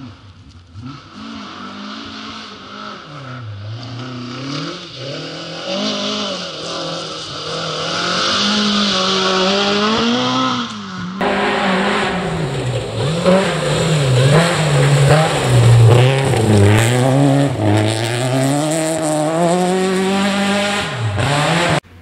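Rally car engines revving hard and dropping back again and again through gear changes and lift-offs, growing louder as a car approaches. About 11 seconds in the sound cuts abruptly to another, louder stretch of a car revving and lifting off.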